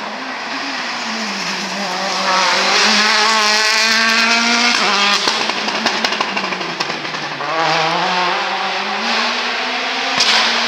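Citroën DS3 WRC rally car's turbocharged four-cylinder engine accelerating hard, revs climbing steeply. About five seconds in the revs cut off sharply with a burst of crackles, then climb again toward the end.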